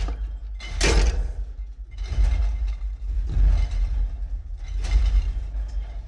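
Monster vocal sound effect: a deep rumbling growl that rises in four harsh, noisy swells.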